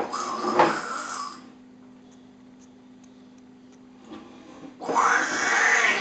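A young child making a raspy, growling 'scary voice' twice: one growl of about a second and a half at the start, and a second one near the end.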